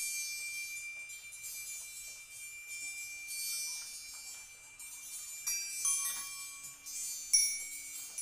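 Improvised percussion on porcelain bowls and small metal objects: light strikes leave several high ringing tones hanging on, with a low tone joining about three seconds in and sharper strikes about five and a half and seven seconds in.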